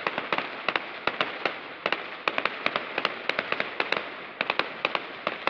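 Fireworks display: glittering star shells bursting overhead, giving many sharp pops and crackles in quick, irregular succession.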